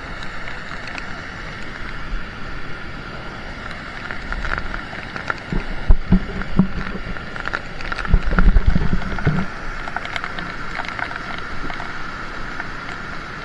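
Fast-flowing mountain stream in spate, a steady rush of white water, with rain spattering and scattered clicks. Low thumps and rumbles of wind and knocks on the microphone come from about six to nine seconds in.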